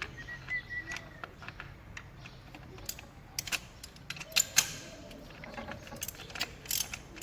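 Scattered metallic clicks and clinks of hand tools working at the engine while the intake camshaft solenoid valve is being taken out, with a short high squeak in the first second.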